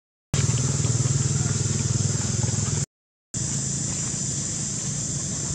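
A motor vehicle's engine running steadily, with a steady high hiss over it. The sound drops to silence at the very start and again for about half a second around three seconds in, and the engine is fainter after the second break.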